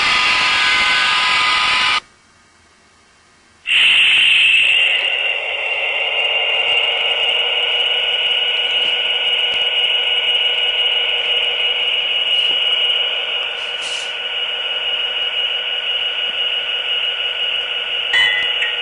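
HO-scale model locomotives running on the layout: a steady hum with a high whine. The sound cuts out suddenly about two seconds in and comes back abruptly about a second and a half later.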